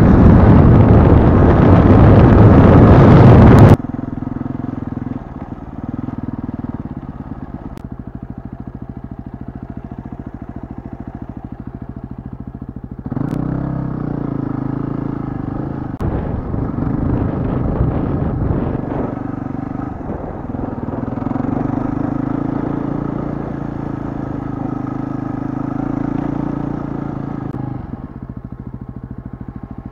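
Yamaha WR250R's single-cylinder four-stroke engine running as the bike rides off-road, getting louder about 13 seconds in and rising and falling with the throttle. For the first four seconds heavy wind buffeting on the microphone drowns it out, then cuts off abruptly.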